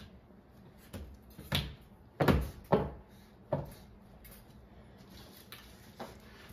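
Plastic computer fans being set down and pressed onto a fan mounting panel by hand: a series of knocks and clicks, the loudest two about two seconds in.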